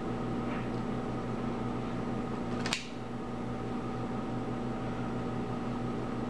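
A steady mechanical hum with a few held tones, like a fan running, and one sharp click nearly three seconds in.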